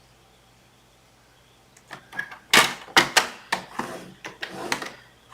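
Cardstock being scored and shifted on a scoring board: quiet at first, then a run of sharp scrapes and taps starting about two and a half seconds in, the loudest ones close together, then trailing off.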